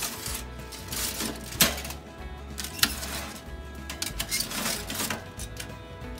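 Metal tongs clinking and scraping against a foil-lined baking tray and the oven's wire rack as the tray is shifted, a run of irregular sharp clicks, the loudest about a second and a half in, over background music.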